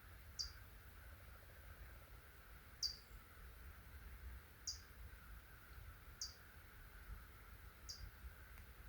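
Faint, short high chirps from a small bird, each sliding quickly downward, repeated five times at intervals of about two seconds over a quiet steady hiss.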